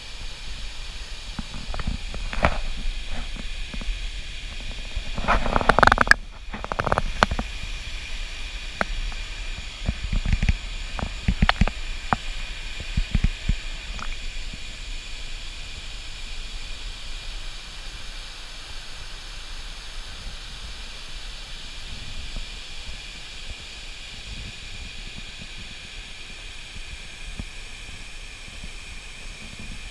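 Pool water sloshing and splashing against a waterproofed action camera held at the water's surface, in irregular bursts during the first half, loudest about five to seven seconds in. A steady hiss lies underneath throughout.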